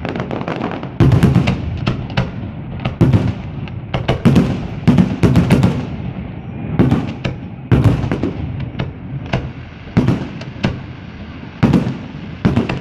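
A New Year fireworks salute: shells bursting in a fast, irregular run of loud bangs, a dozen or more, each with a short rumbling tail and crackle between them.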